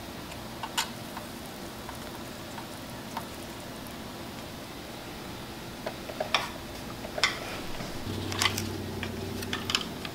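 Sparse small clicks and taps from handwork at a soldering bench, over a steady background hiss; the clicks grow more frequent in the second half, and a low steady hum comes in near the end.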